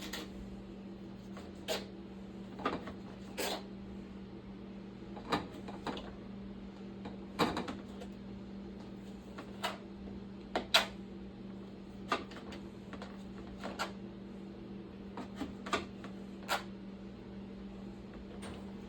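Kitchen knife chopping hot dogs: irregular sharp knocks, some close together and some a couple of seconds apart, over a steady low hum.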